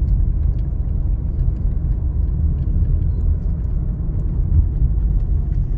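Car in motion heard from inside the cabin: a steady low rumble of road and engine noise.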